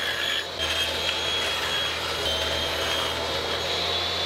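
Table saw running with a steady high whine while a crosscut sled carries reclaimed cedar fence pickets through the blade, crosscutting them into slats.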